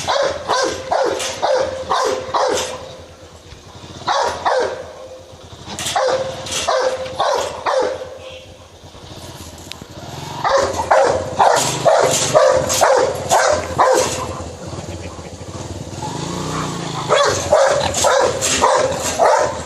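Rottweiler barking aggressively in runs of quick, loud barks, several a second, with short pauses between the runs.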